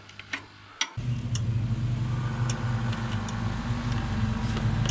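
An engine running steadily with a low, even pulse, coming in abruptly about a second in. Before it there are a few light metallic clicks.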